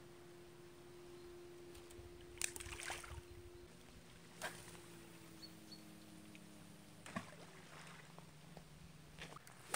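Faint, steady drone of a distant motorboat engine, its pitch sliding a little lower about four seconds in. Several sharp clicks and knocks close by stand out above it, the loudest at about two and a half and seven seconds.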